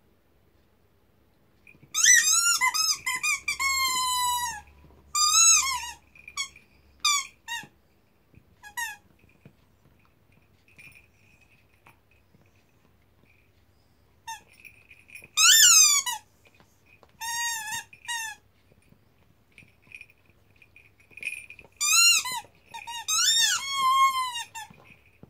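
A cocker spaniel chewing a rubber chicken squeaky toy, which gives short, pitched squeals that mostly fall in pitch. They come in three spells of rapid squeaks with quiet gaps between them.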